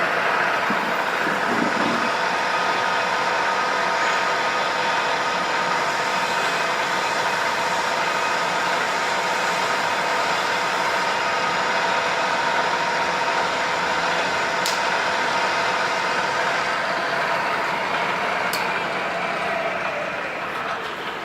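Bridgeport milling machine running steadily, a constant mechanical whine made of several steady tones. There are two sharp ticks late on, and the sound eases off slightly near the end.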